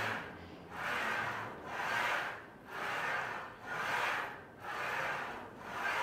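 Smith machine bar sliding along its guide rails in a rhythmic rubbing hiss, about one stroke a second, as it is ridden down and up through back squats.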